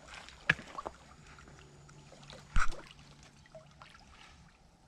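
Pond water trickling and sloshing around a person wading in the shallows, with two sharp knocks, about half a second in and again about two and a half seconds in.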